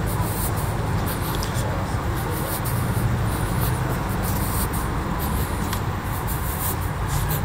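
Busy street ambience: a steady low traffic rumble with indistinct voices and scattered small clicks.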